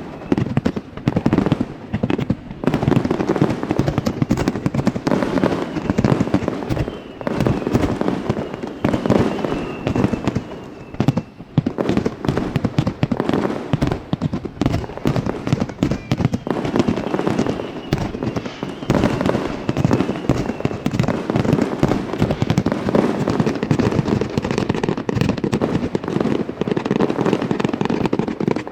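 Aerial fireworks display: a dense, continuous barrage of shell bursts, bangs and crackling, one on top of the next.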